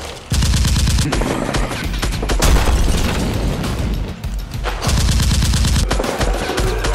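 Dramatic background music with rapid bursts of gunfire sound effects laid over it, starting suddenly a fraction of a second in.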